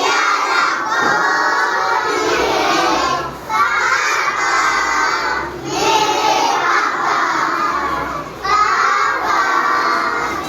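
A group of children's voices singing together loudly in unison, in phrases separated by short breaths every two to three seconds.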